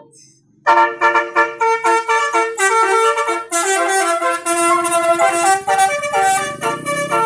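Basuri telolet horn, a multi-tone vehicle horn, playing a quick melody of changing notes after a short pause at the start. A low rumble joins underneath about halfway.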